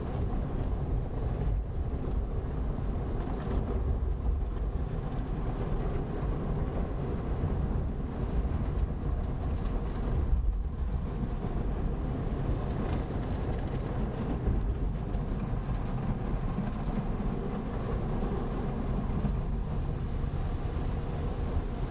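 Automatic car wash heard from inside the car's cabin: a steady, muffled rumble of water spray and wash machinery against the body. A brief higher spray noise comes about twelve seconds in.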